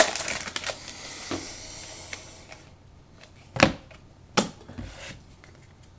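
Foil trading-card pack wrapper crinkling as it is torn open, fading out after a couple of seconds, followed by two short sharp taps.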